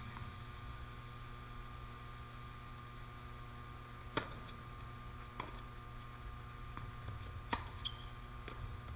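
Tennis racket strikes on the ball in a doubles rally: a sharp serve hit about four seconds in, the loudest sound, then several more hits about a second apart. A steady low hum runs underneath.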